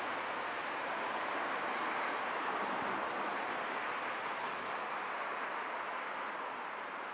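Steady city-street traffic noise, a continuous even wash of passing vehicles, easing slightly near the end.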